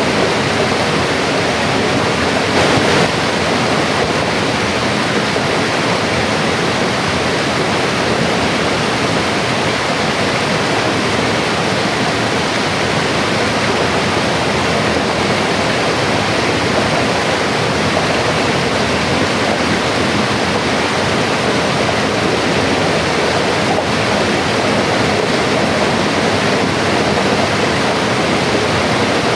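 Mountain river flowing steadily, an even rushing of water with no changes.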